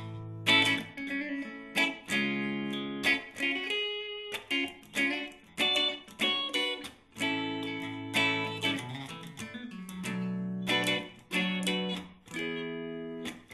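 Instrumental guitar intro to a song: chords strummed with sharp attacks, each ringing and fading before the next, one or two a second.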